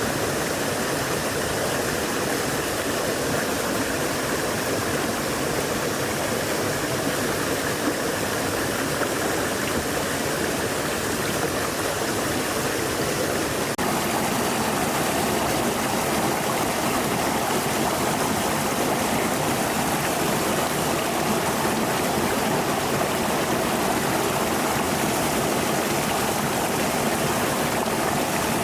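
Stream water flowing, a steady rushing. About halfway through the sound changes abruptly and becomes a little louder.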